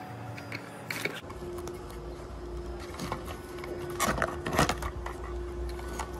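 Sandpaper rubbing in a few short scraping strokes against the plastic housing of a car's fuel pump module, the loudest a little after four seconds in, with a few plastic clicks near the start as the module is handled. A faint steady hum runs underneath.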